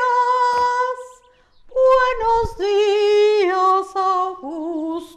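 A woman singing long, held notes in an operatic style, in two phrases: the first ends about a second in, and the second starts after a short pause and falls in pitch near the end. There is a short low thump about two and a half seconds in.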